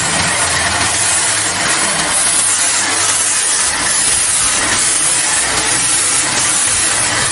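Compressed-air paint spray gun, a siphon-feed type with its paint cup hanging below, hissing steadily as it sprays paint onto a car door.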